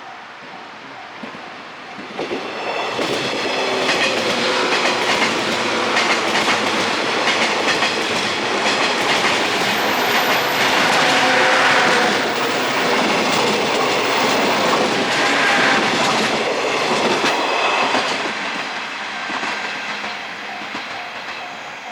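A JR West 105 series electric train, two coupled two-car units, passing through a level crossing, its wheels clattering over the rail joints. The noise builds about two seconds in, stays loud through the middle and fades near the end, with the crossing's warning bell ringing under it.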